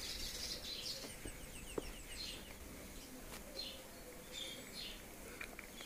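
Faint birds chirping: short high calls every second or so, with a quick trill about half a second in. A single faint click sounds about two seconds in.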